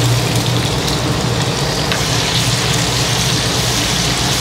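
Minced meat sizzling in hot oil in a wok as it is added to fried chili-garlic paste and stirred, over a steady low hum.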